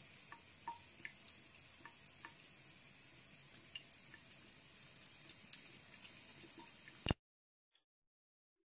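A thin stream from a bathroom faucet trickles faintly into the sink, with scattered small drips and splashes as a cat laps from it. The sound cuts off abruptly about seven seconds in, followed by near silence.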